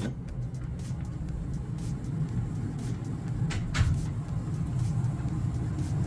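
Carrier gas furnace running: a steady low rumble from the cabinet, with a couple of faint clicks about three and a half seconds in.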